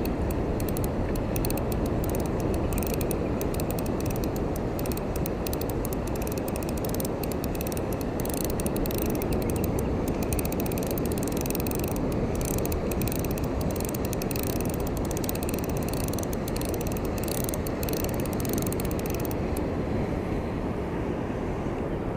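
Ryobi Smurf 1000 spinning reel cranked steadily to retrieve a hooked squid, its gears giving a fast, fine ticking that stops near the end. Steady low rumbling noise underneath.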